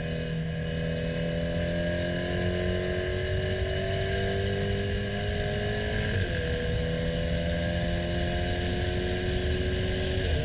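KTM X-Bow Comp R's turbocharged 2.0-litre four-cylinder engine at full throttle, its pitch climbing steadily, with a quick dual-clutch (DSG) upshift about six seconds in and another right at the end.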